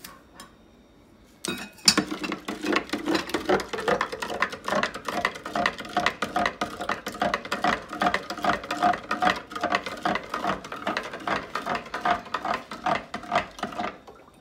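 A long spoon stirring an iced oat-and-banana drink in a plastic pitcher, ice cubes and spoon clinking rapidly and continuously against the sides. It starts about a second and a half in and stops just before the end.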